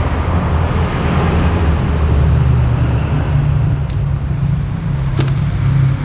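Motor vehicle engines running steadily in road traffic, a loud low rumble, with one light click about five seconds in.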